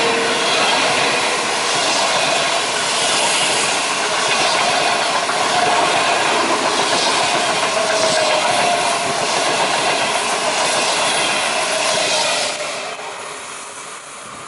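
Passenger coaches of an intercity through train, 25T type, rolling past close at speed: a steady loud rush of wheels on rail with faint wavering wheel tones. It fades away about 13 seconds in as the last coach draws off.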